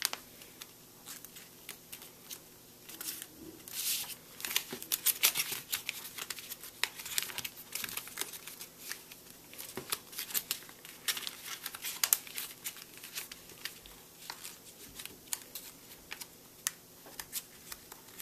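Sheet of white paper being folded and creased by hand into an origami water bomb: irregular crinkling and sharp crackles of paper, busiest in the middle stretch.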